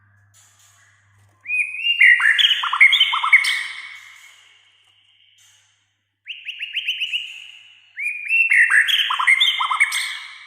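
White-rumped shama (murai batu) singing in three loud phrases of rapid, down-slurred whistled notes. The first phrase starts about a second and a half in, a shorter one comes around six seconds, and a third runs near the end.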